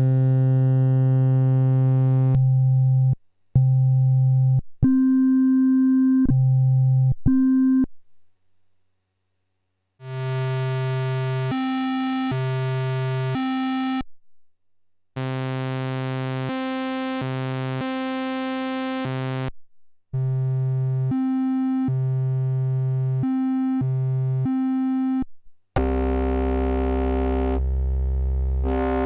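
DIY Arduino wavetable additive Eurorack oscillator holding steady, harmonic-rich synth tones that cut abruptly from one waveform to the next, with a couple of short silent gaps. Near the end it switches to a denser, buzzier FM-modulated tone.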